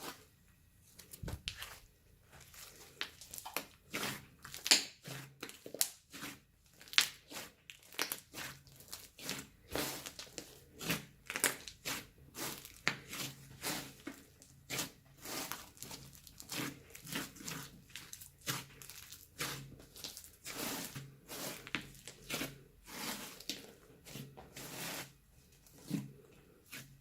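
Slime being kneaded, squished and stretched by hand, giving a continuous run of irregular sticky crackles and pops, several a second.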